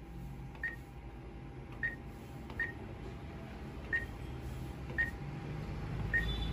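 Diebold ATM keypad beeping as a customer ID number is keyed in: six short, high beeps at uneven intervals, one for each key press.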